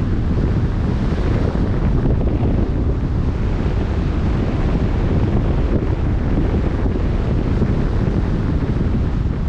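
Wind buffeting the microphone in a steady low rumble, over the rush of choppy open-sea water around a moving boat.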